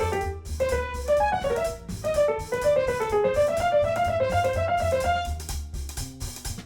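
Background music: a quick, bouncy piano melody over a steady bass line.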